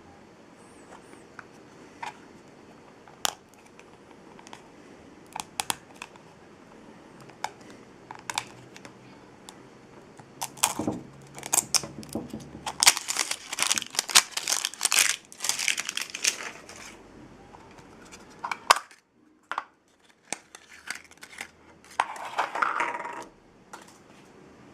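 Blind-bag toy packaging handled and torn open by hand: scattered light clicks and taps, then a long stretch of dense crinkling and tearing of the wrapper about halfway through, and another short burst of crinkling near the end.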